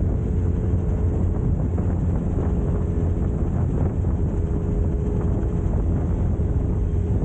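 Wind rushing over the microphone of a Suzuki Katana motorcycle on the move, with the engine running steadily underneath.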